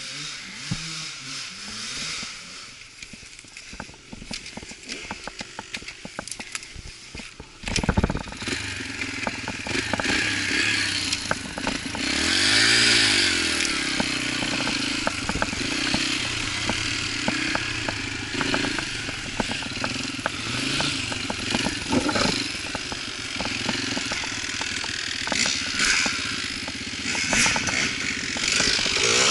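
Yamaha dirt bike engine, quieter at first with scattered clicks, then coming up sharply about eight seconds in and running under throttle as the bike rides a trail. The revs rise and fall, with one strong rev up and back down a few seconds later.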